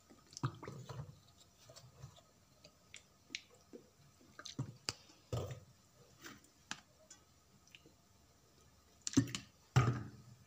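Sauce bottles being handled and squeezed over a bowl of raw chicken pieces: scattered soft clicks and squelches, with two louder knocks near the end.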